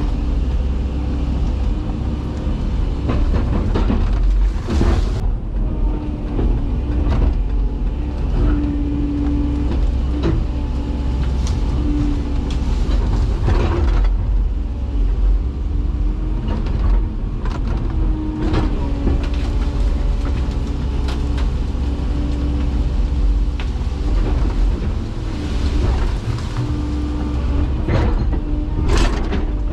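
Komatsu PC228 excavator's diesel engine running under load, with a hydraulic whine that comes and goes, and repeated sharp cracks and snaps of wood as trees and brush are knocked down.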